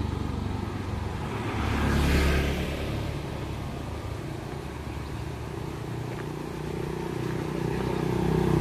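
Small motorbikes passing on a narrow road: one goes by about two seconds in, its engine swelling and fading, and another grows louder near the end as it approaches.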